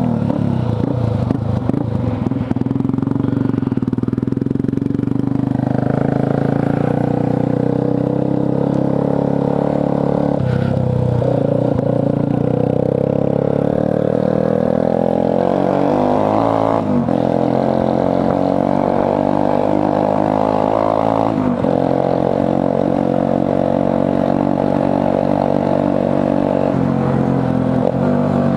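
Motorcycle engine running while riding. Its pitch climbs and then drops suddenly a few times as the rider accelerates and changes gear.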